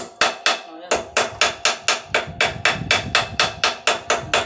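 Rapid hammer blows, about four a second with a short pause near the start, driving a steel steering-head bearing cup (race) into a Suzuki Thunder motorcycle's frame head tube. Each strike is followed by a brief metallic ring.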